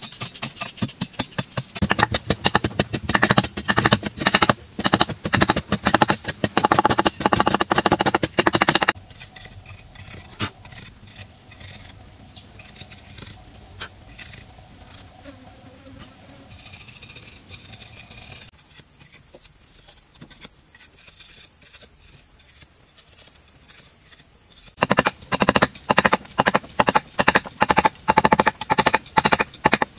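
A metal blade carving into a hardened clay wall in quick strokes, scraping and chipping. A dense run of strokes comes early, then slower, quieter scrapes and a lull. Near the end a fresh run of rapid strokes starts as a wooden mallet drives the blade into the clay.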